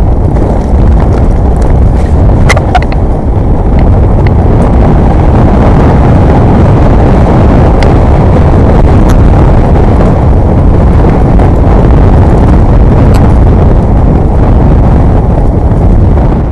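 Loud wind noise buffeting the action camera's microphone as a mountain bike rides at speed, with a few sharp clicks and knocks from the bike over the trail.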